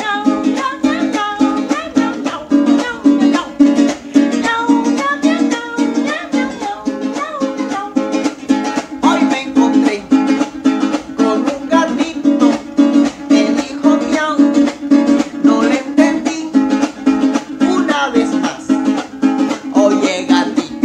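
A small acoustic guitar strummed in a quick, steady rhythm, with a man singing over it. The music starts suddenly at the beginning.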